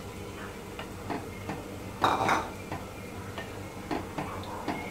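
Wooden spoon stirring a thick curry in a metal pot, with small irregular knocks and scrapes against the pot and one louder burst about two seconds in.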